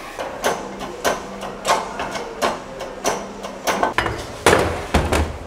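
A run of sharp metal knocks, about eight of them roughly two-thirds of a second apart, from a hand tool striking steel at the workbench, with a heavier dull thump about four and a half seconds in.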